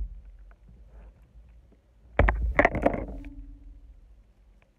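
Handling noises in a kayak as a caught bass is held and unhooked with pliers: scattered small clicks and scrapes, with one loud clattering knock about two seconds in that rings briefly.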